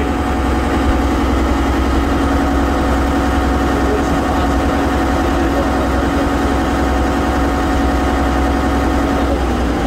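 The engine of a Venetian vaporetto (water bus) running steadily as the boat cruises, heard from its open deck, with a steady low hum. The engine note shifts slightly near the end.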